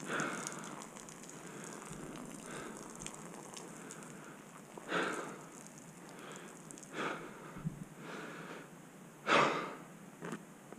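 A hiker walking a dirt forest trail: steady crackle of footsteps on dirt and leaves, with several short, louder puffs of breath every couple of seconds.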